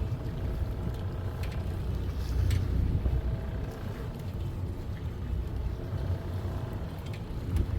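Fishing boat's engine running with a steady low rumble, with a few faint clicks over it.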